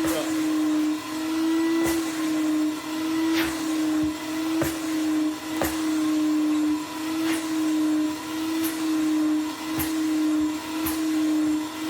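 Vacuum cleaner running with a steady motor whine while its nozzle sucks carbon dust off a pleated exhaust filter. The sound dips and clicks about once a second as the nozzle is worked across the filter.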